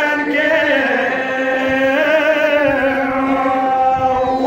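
Voices chanting a nauha, a mourning lament, in a few long held notes, each held for a second or more before the pitch shifts.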